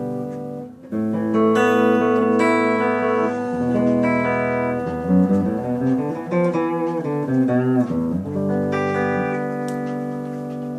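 Greco guitar being played: chords struck and left to ring, a quick run of single notes in the middle, then another chord that rings on.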